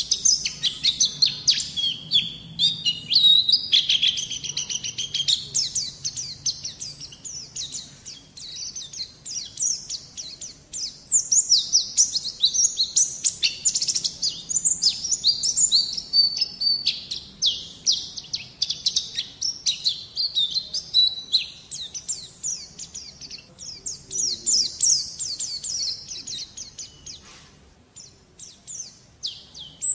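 White-eye (pleci) song: a long, rapid stream of high-pitched twittering chirps, played as a tutor recording to draw song from untrained young birds. It thins out briefly near the end.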